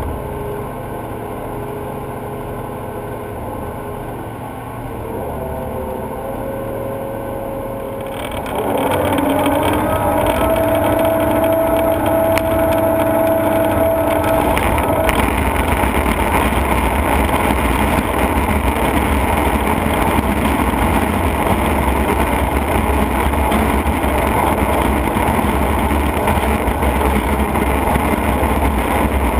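TANA Shark 440DT mobile waste shredder running, a steady mechanical hum from its turning rotor. About eight seconds in, tires dropped into the hopper are caught by the rotor and the sound jumps to a louder, rough, dense noise of rubber being shredded, with a held whine for several seconds as the load starts, then steady heavy shredding.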